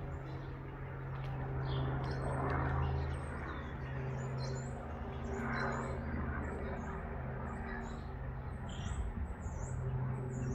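Small helicopter flying past, a steady low drone from its rotor and engine. Small birds chirp repeatedly over it in short high calls, most often near the end.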